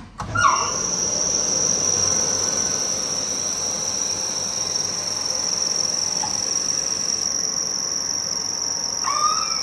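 Kaeser SX 6 rotary screw air compressor starting up and running steadily with a high whine, building pressure in its air receiver from about 2.3 bar. A couple of clicks come just before it starts.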